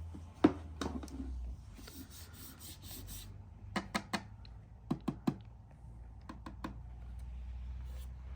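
Light taps and clicks of hands handling hard objects, in quick runs of about three at a time, over a low steady hum.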